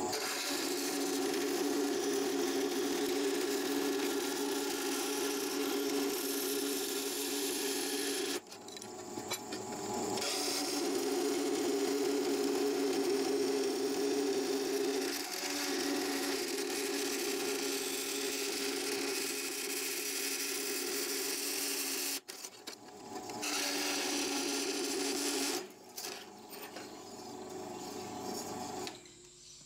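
Vertical bandsaw cutting through a steel plate, running steadily. The sound dips briefly twice and falls quieter near the end, once the cut is finished.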